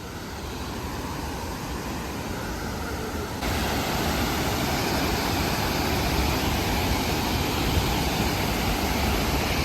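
Waterfall's water rushing in a steady noisy roar that grows louder about three and a half seconds in, with a heavy low rumble underneath.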